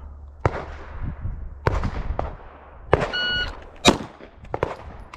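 A shot timer beeps once, and about three-quarters of a second later a single loud pistol shot cracks from the draw: a 0.75 s draw-to-shot time. A couple of sharper knocks come earlier.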